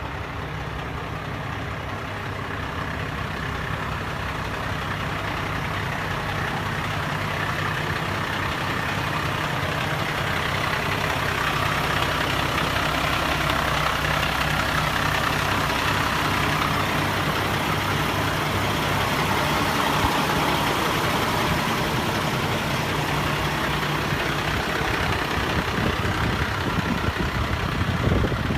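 A heavy diesel truck engine running steadily, growing louder over the first dozen seconds and then holding.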